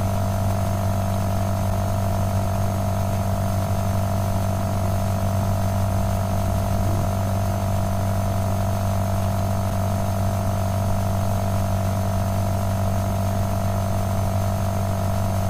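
Steady electrical hum, a constant buzz with several fixed tones, typical of mains interference picked up in the recording.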